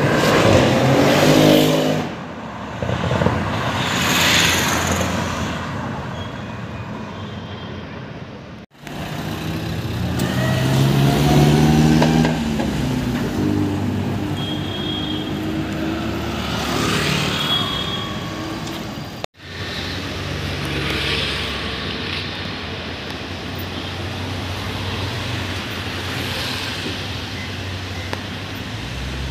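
Performance car engines revving and accelerating past on a city street, with the engine pitch climbing and falling. The loudest bursts come about a second in and again around twelve seconds in, and the sound breaks off abruptly twice where the clips are cut together.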